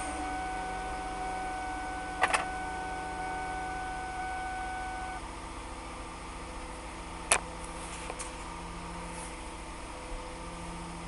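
The 3.0-litre V6 of a 2003 Mercury Sable idling steadily just after starting, with a steady electronic warning tone that stops about five seconds in. Two sharp clicks stand out, one about two seconds in and one about seven seconds in.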